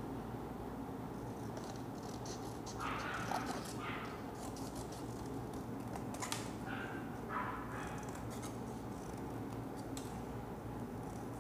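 Scissors snipping and cut paper being handled, with short clicks over a steady background hum. A few louder, short rustling noises come about three and seven seconds in.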